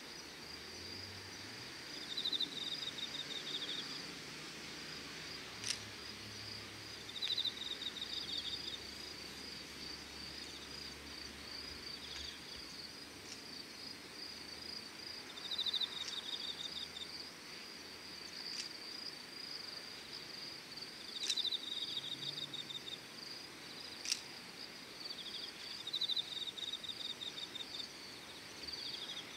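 Insects singing at dusk. One gives a steady, high, pulsing trill throughout, while another repeats short pulsed chirp phrases about a second long every few seconds. A few sharp ticks are scattered through it.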